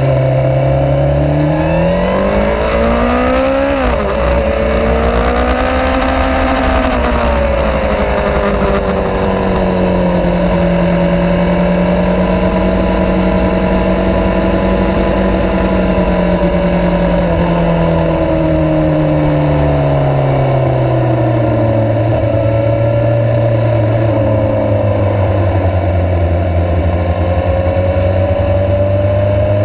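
Suzuki GSX-R 750's inline-four engine on the move: it revs up through second gear, upshifts about four seconds in, pulls briefly, then runs at a steady part throttle and eases off to low revs after the middle. Wind rush over the bike runs underneath.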